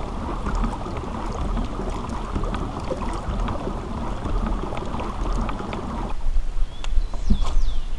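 Pedal-driven kayak moving through the water: a steady rushing noise that cuts off abruptly about six seconds in. A few bird chirps follow near the end.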